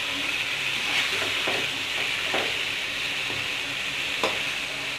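Chicken pieces sizzling in hot oil in a karahi, with a metal slotted spoon stirring them and scraping and knocking against the pan a few times.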